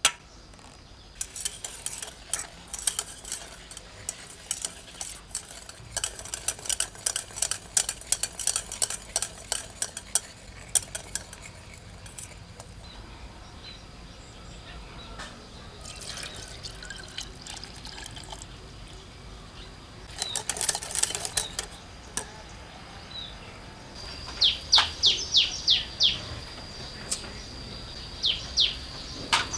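Wire whisk clicking rapidly against the sides of a stainless steel saucepan, whisking egg yolks, sugar and cornstarch into a custard base, in several spells. Near the end a bird gives two quick runs of descending chirps.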